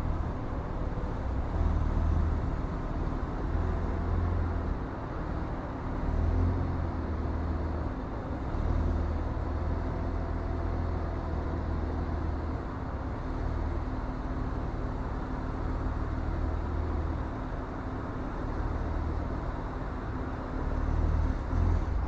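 Diesel semi-truck engine idling with a steady low rumble that swells and eases slightly every second or two.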